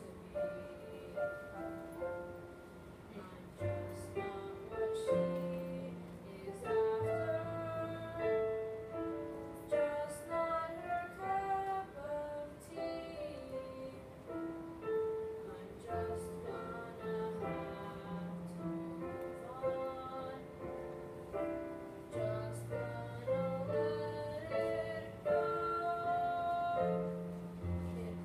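Piano music with a singing voice carrying the melody.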